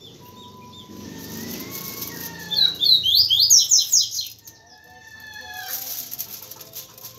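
A songbird gives a loud run of about eight quick, falling notes starting about two and a half seconds in, over fainter whistled bird calls. Aluminium foil crinkles as it is handled.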